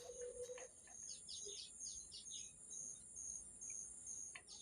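Faint outdoor insect chorus: a steady high trill with a pulsing chirp about twice a second. Songbird chirps come over it: a quick run of falling notes about a second in, and a few more near the end.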